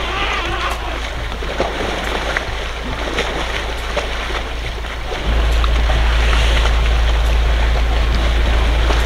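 Wind rumbling on the microphone with a steady rush, growing louder about five seconds in, over light splashing of muddy water as elephants wade in the waterhole.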